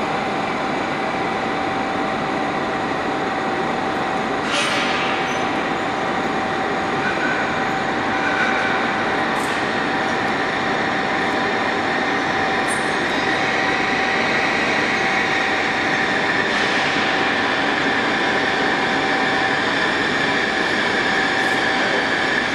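A DB ICE 3 high-speed electric train (Siemens Velaro) rolling slowly in to stop at a platform, with a steady whine under the running noise. From about halfway a high squeal grows louder as it brakes, and a few sharp clicks sound along the way.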